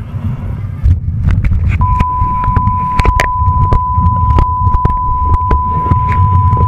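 Rumble and irregular sharp knocks of a small action camera being handled and bumped on a hard gym floor. A steady high beep tone starts about two seconds in and holds.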